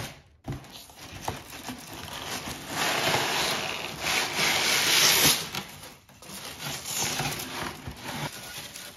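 Honeycomb kraft-paper packing wrap crinkling and rustling as it is pulled out of a cardboard shipping box, with the box flaps scraping. It is loudest about halfway through.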